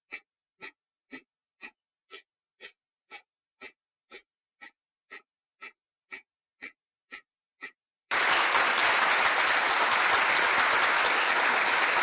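Quiz countdown timer sound effect: clock-like ticks, about two a second, for the first eight seconds. Then an applause sound effect, a steady burst lasting about four seconds.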